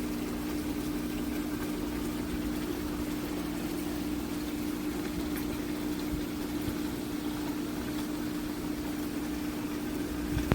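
Dreo Cruiser Pro T1S tower fan running: a steady rush of air with a constant motor hum.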